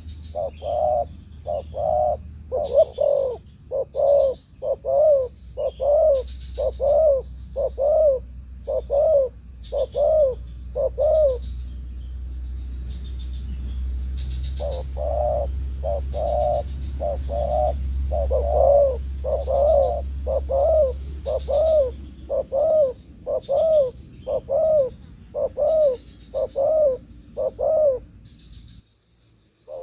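Spotted doves cooing: a rapid run of short coos, about two a second, that breaks off for a few seconds in the middle and stops near the end. A low rumble lies underneath for much of it.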